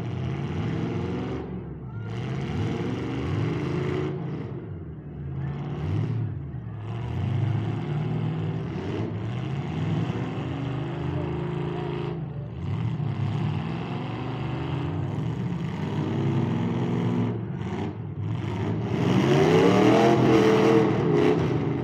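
Demolition derby cars' engines revving hard in repeated rising and falling surges as the cars push against each other. The loudest rev is a long one a little after three-quarters of the way through.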